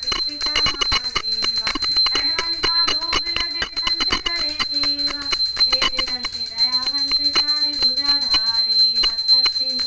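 Devotional aarti song with singing, over the rapid, continuous ringing of a small puja hand bell.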